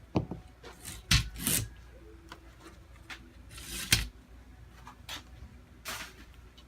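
Work on a window screen: scattered rubbing and scraping, with a few short knocks, the loudest about four seconds in.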